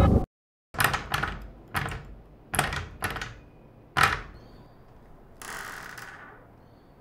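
Six sharp thuds at uneven intervals, each dying away quickly, followed about five and a half seconds in by a short hissing rush.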